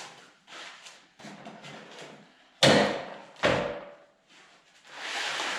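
Two sharp knocks about a second apart, with lighter tapping and handling noise around them, then a longer swishing noise near the end.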